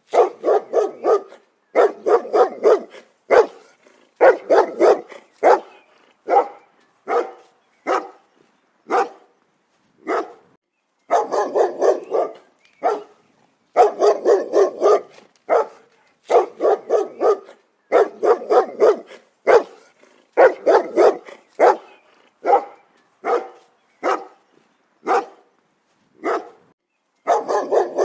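A dog barking repeatedly in volleys of several quick barks with brief pauses between, loud and sharp.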